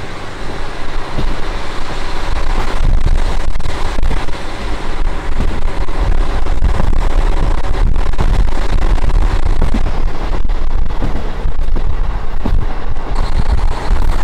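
KiHa 40 diesel railcar under way, heard on board: its diesel engine running and the wheels rolling on the rails, with a few sharp clicks. It builds over the first two seconds, then runs steady and loud.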